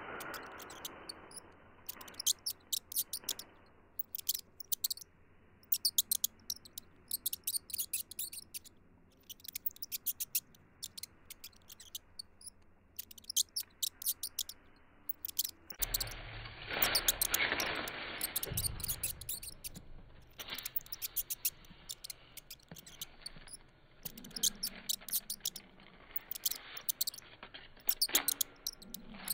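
High-pitched rat squeaking, rapid chirps in short clusters that come again every second or two, over faint room noise. About 16 s in there is a louder rustling scuffle lasting a few seconds.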